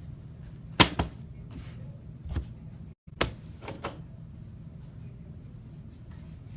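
A handful of sharp knocks and clacks, as of boxes being handled and set down on a table: the loudest pair about a second in, more about two and a half and three and a half seconds in. The sound cuts out for an instant about three seconds in.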